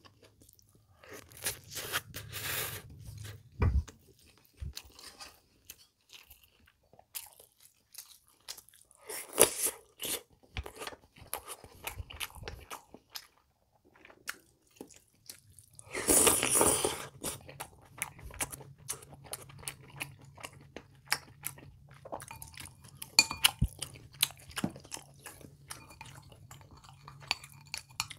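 Close-up chewing of pork kimchi stew and rice, with crunching and wet mouth clicks. Three louder noises, each about a second long, come near the start, about a third of the way in, and past the middle.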